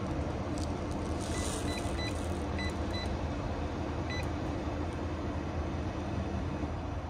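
Fuel-pump keypad beeping as its buttons are pressed: a quick run of short high beeps, then one more about four seconds in, over a steady low hum of idling truck engines.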